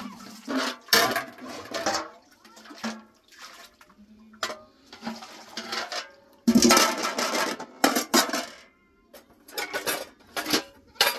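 Aluminium pots, bowls and a metal funnel clanking and knocking as they are handled. A little past halfway, goat milk is poured from one pot into another, a denser splashing run lasting about a second.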